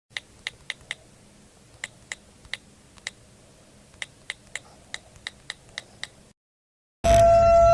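A series of about sixteen sharp, irregular clicks over a faint hiss, stopping about six seconds in. Near the end a loud, steady horn-like tone starts abruptly.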